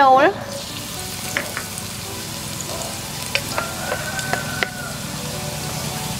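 Minced garlic frying in hot oil in a pan: a steady sizzle with scattered crackles and pops.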